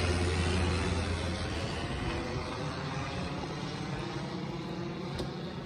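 Airplane flying low overhead: a steady engine drone, strongest at first, that slowly grows quieter as the plane moves away.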